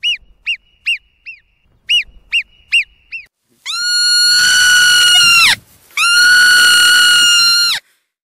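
Marmot calls: a run of about eight short, sharp chirps over the first three seconds, then two long whistled calls of nearly two seconds each, held at one pitch and dropping away at the end.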